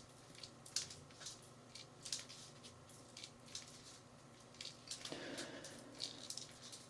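A man breathing heavily after exercise, with one long breath about five seconds in, amid scattered soft clicks and rubbing sounds close to the microphone.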